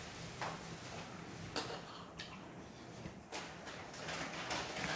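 Wire whisk beating pakora batter in a stainless steel bowl, with irregular clinks and scrapes of the metal whisk against the bowl.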